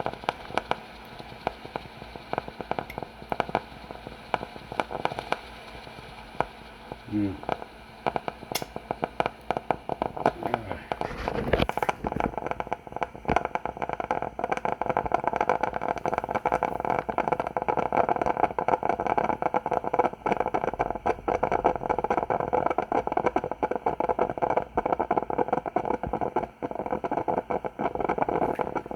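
Coffee machine running with water sputtering and crackling through its partly blocked water tube, a dense stream of small crackles that grows louder about twelve seconds in; the flow is still restricted, not yet clean.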